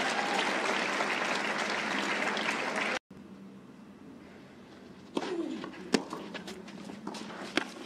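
Tennis crowd applauding steadily after a point, cut off suddenly about three seconds in. A quieter court follows, with a few sharp knocks.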